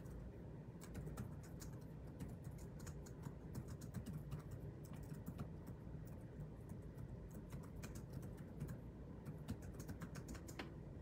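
Typing on a computer keyboard: irregular runs of key clicks, over a low steady hum.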